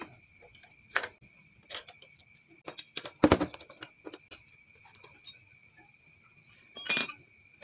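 Hand tools and loose metal parts clinking on a Honda Vario 110 engine as the valve-cover bolts are undone and the cover is taken off: scattered light clicks, a heavier clunk about three seconds in, and a sharp ringing metal clink near the end.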